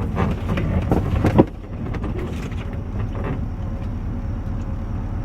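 A vehicle engine running steadily at a low, even rumble, with a few rattling knocks in the first second and a half and a sharp clunk about a second and a half in.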